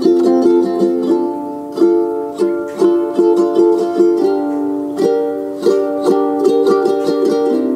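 Background music: a track of quick plucked-string notes over steady chords.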